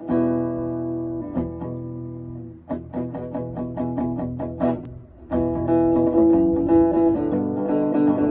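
Harmony archtop electric guitar with a Lindy Fralin P-90 pickup, amplified through a Mackie Thump 12A powered speaker. A chord rings for about two seconds, then comes a run of picked single notes, and from about five seconds in fuller chords ring out.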